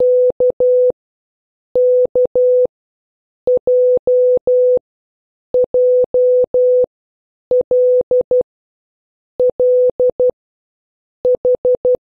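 Morse code practice tones: a single steady beep keyed on and off in short dits and long dahs, one letter group about every two seconds. Near the end come four quick dits, the letter H.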